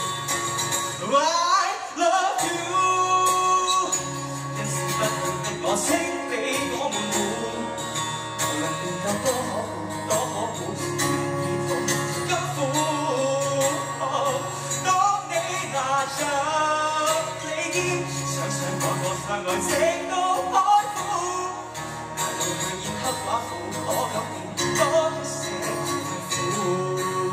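A male voice singing a ballad to his own strummed acoustic guitar, heard live through the stage microphone, with a brief thinning of the guitar about two seconds in.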